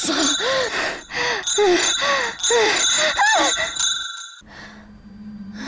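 A young woman's voice panting heavily: short voiced gasps, about two a second, over steady high chirring. Past the middle the gasps give way to fainter breaths, and a low steady hum comes in.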